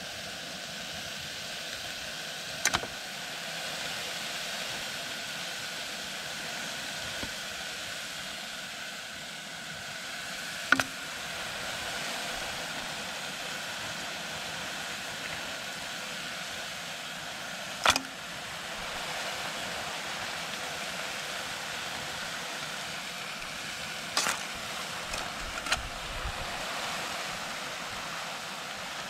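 Steady hiss from a small pot cooking on a camp stove, with a few sharp knocks about 3, 11 and 18 seconds in and several more close together near the end.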